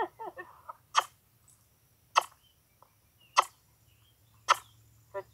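Sharp lip-kissing sounds made by a person, repeated about once a second, five times: the kiss cue that asks a horse to walk forward.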